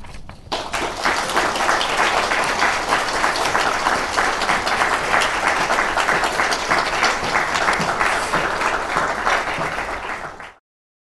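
Audience applauding, starting about half a second in and cutting off suddenly near the end.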